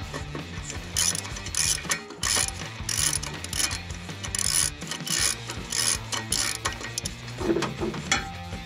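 Hand ratchet wrench clicking in a string of short strokes, about two a second, as it works the bolts holding the fan and pulley on a 1967 Dodge D200's engine. There is a sharp metal knock near the end.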